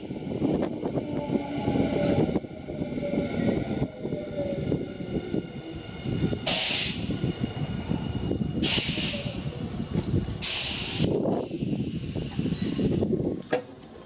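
Nankai electric train running on the rails at a station, a steady rumble with a whine that falls in pitch over the first few seconds. It is followed by three short bursts of compressed-air hiss about two seconds apart.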